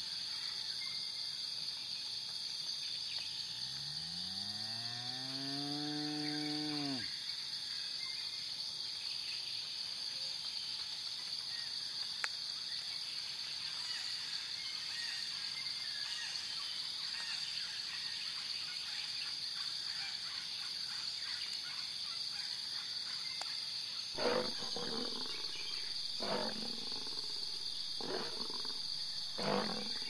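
A wildebeest gives one long nasal call that rises in pitch and then holds, a few seconds in. Near the end a lion makes four short roaring grunts about two seconds apart. A steady high hiss runs underneath throughout.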